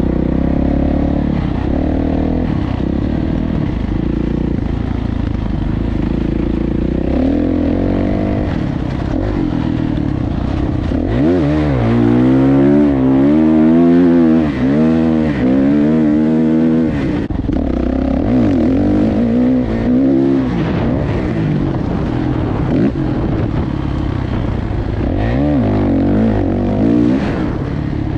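Dirt bike engine under the rider, revving up and down over and over as the throttle opens and closes. It is loudest about halfway through, with quick repeated rises and falls in pitch.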